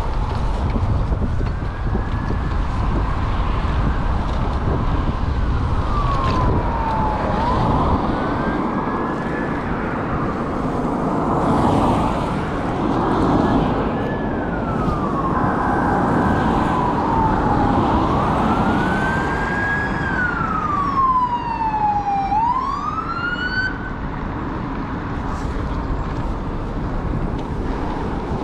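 An emergency-vehicle siren wailing, its pitch rising and falling slowly through several cycles before dying away a few seconds before the end, over wind rumble on the microphone.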